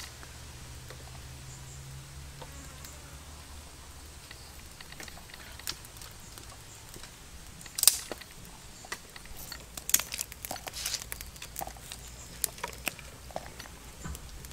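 Knife work by hand: a few sharp knocks, the loudest about eight seconds in, then a run of quick small clicks and taps, over a low steady hum.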